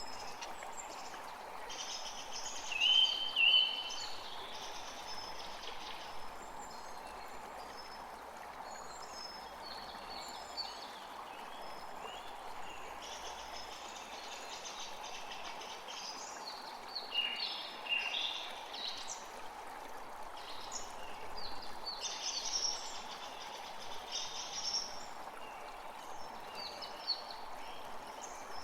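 Forest creek flowing steadily, with several birds singing and calling over it; the loudest calls are two short, high notes about three seconds in.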